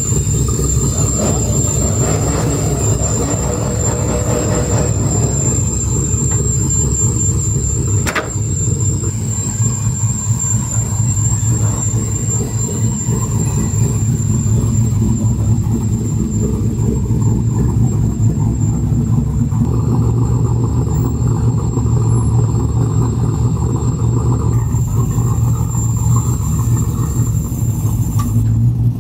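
Lowered Chevrolet pickup trucks running at low speed, a steady low engine rumble, with a steady high-pitched whine over it that stops just before the end. There is a single sharp click about eight seconds in.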